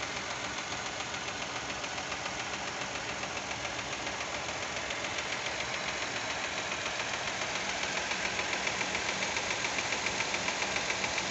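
Fiat Argo 1.0 Firefly engine running hot at idle with a fast, even ticking that grows louder in the second half. The owner calls it lifter noise and finds it strange, since he believes the lifters are hydraulic and should not tick.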